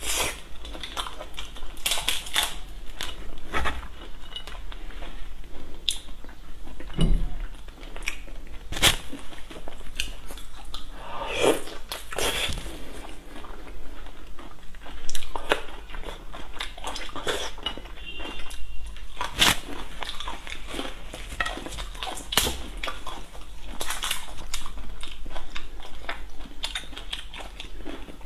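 Close-up eating sounds of someone eating shell-on prawns: irregular crunching and cracking of shells, chewing, and sucking at the shells.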